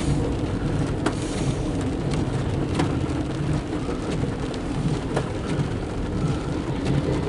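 Rain hitting a car's windshield with the wipers running, over a steady low rumble heard from inside the moving car's cabin, with an empty autorack freight train rolling alongside. A few sharp ticks stand out.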